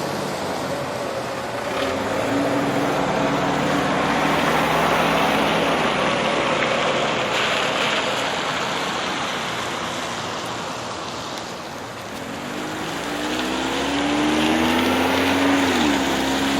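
Motor vehicles passing by, their noise swelling and fading twice, with an engine tone that drops in pitch as one goes past near the end.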